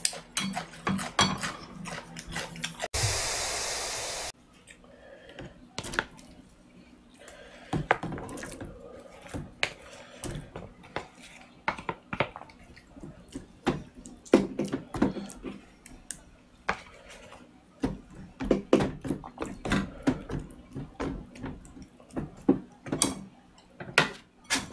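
Table and utensil sounds: a plastic container knocked and tapped as cooked rice is turned out into leftover soup broth in a plastic meal-kit tray, then a wooden spoon clicking and scraping as the rice is stirred in. A loud burst of hiss-like noise about three seconds in lasts about a second and a half.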